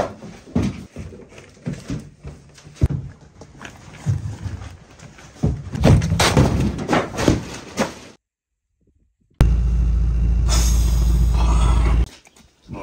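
Rummaging, rustling and repeated thuds of things being grabbed and moved about by hand. After a short silence, a steady low hum starts and stops abruptly a few seconds later.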